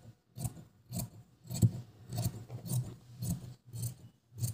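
Large tailoring scissors snipping through folded cloth in a steady run of cuts, about two a second, trimming an uneven edge straight.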